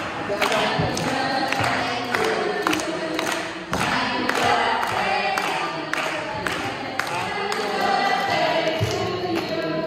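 A group of people singing a celebration song together, clapping their hands in time at about two to three claps a second.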